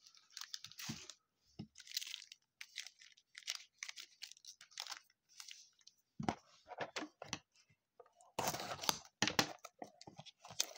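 Foil trading-card pack wrappers crinkling and rustling as a stack of packs is handled, in scattered bursts with short pauses, busier near the end.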